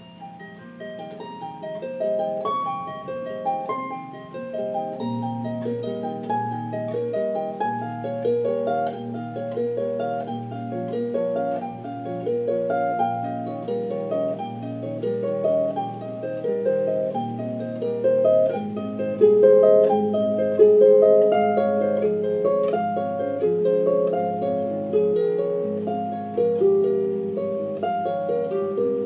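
Solo harp improvisation: a steady flow of plucked notes over ringing low bass notes, starting softly and growing louder within the first couple of seconds.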